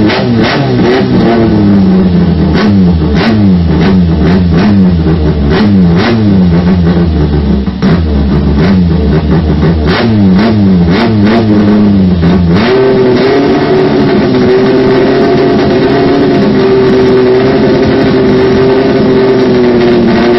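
Straight-piped Toyota K-series four-cylinder petrol engine revved by hand in quick repeated blips, with crackling pops from the open pipes as the revs drop. About two-thirds of the way in, it settles into a steady high rev.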